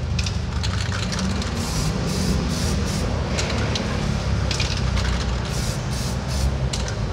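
Samurai Paint aerosol spray can hissing in a series of short spurts as decorative chrome paint is sprayed in light passes. A steady low rumble sits underneath.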